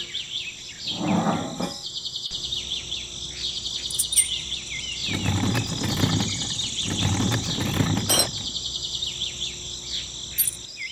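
Insects chirping and trilling in a steady, dense chorus, with bird chirps mixed in. Louder, duller noisy sounds rise over it about a second in and again from about five to eight seconds in.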